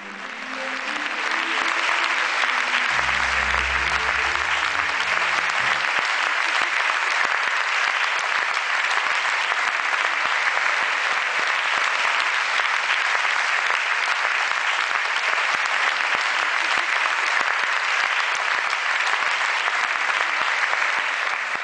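An audience applauding steadily, a dense unbroken clapping. The last notes of a piece of music fade out beneath it in the first few seconds.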